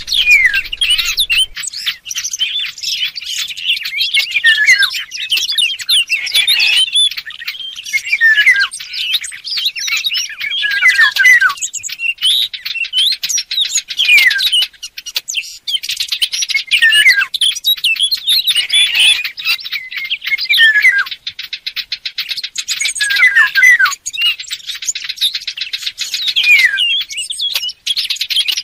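Recorded birdsong of Eurasian golden oriole mixed with fig-bird warbler song, played as a hunting lure: continuous fast chirping and warbling full of quick falling notes, in phrases that break every two to three seconds.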